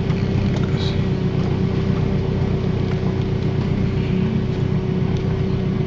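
Toyota Camry engine running at a steady idle, with a constant whine held over the engine note.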